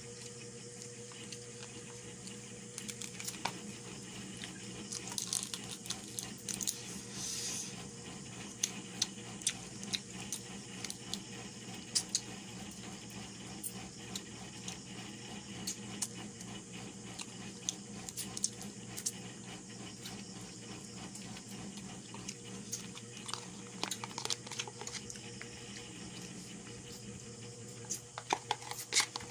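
Close-up eating sounds: irregular chewing, tearing and crunching of food with scattered small clicks, over a steady low hum.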